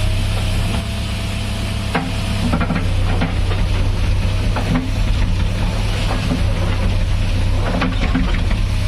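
JCB 3DX backhoe loader's diesel engine running steadily under a light whine that stops about two seconds in, followed by scattered knocks and crackling clatter as the machine works the ground.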